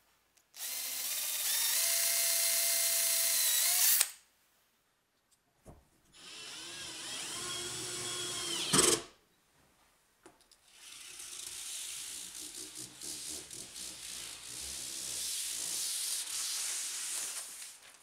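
Cordless drill with a twist bit drilling through an acrylic sheet: two runs of a steady motor whine, the second wavering in pitch and ending in a sharp knock. Then several seconds of uneven rustling noise with small clicks.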